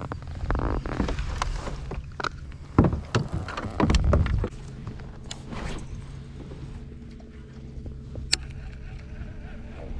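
Gear knocking and clattering against a plastic kayak hull as fishing tools are handled, with heavy thumps about three and four seconds in, over a steady low hum.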